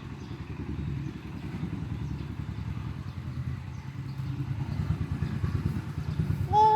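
Steady low engine rumble with a fast flutter, like a motorcycle or other vehicle running. A short, high-pitched voice comes in right at the end.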